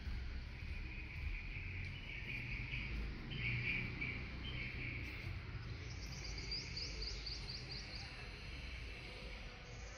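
Birds chirping, with a quick run of high repeated notes, about four a second, from about six to eight seconds in, over a low rumble.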